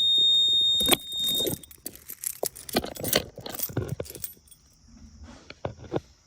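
A fire alarm, set off by pulling the manual pull station, sounds a loud, steady high-pitched tone that cuts off about a second and a half in. Scattered metallic clicks and jangling follow for a few seconds.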